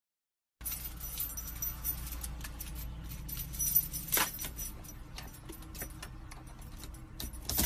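Jingling, clinking clicks of small metal objects over a low steady hum, starting abruptly about half a second in, with a sharper swish about four seconds in.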